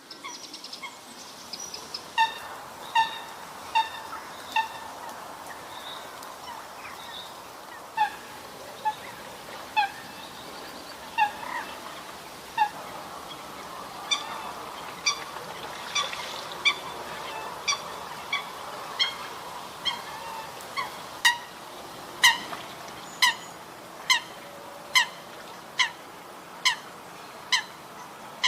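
Coot calling: short, sharp single honking notes, repeated in loose runs at first, then coming steadily about once a second through the second half.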